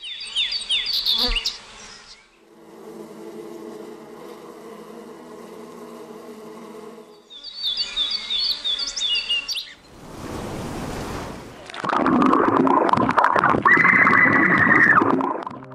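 A bumblebee buzzing steadily, broken twice by short runs of quick high chirps. Near the end comes a brief hiss, then a loud rushing, churning noise with a held high tone.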